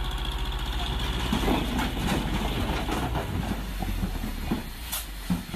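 A large vehicle engine running steadily, a low pulsing rumble, with a few scattered clicks and knocks.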